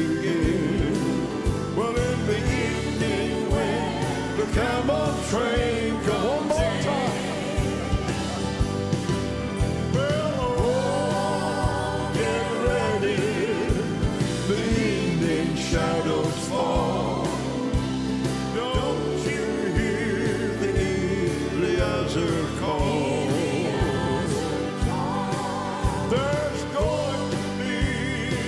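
Live gospel music: piano and keyboards with drums keeping a steady beat, and voices singing over the band.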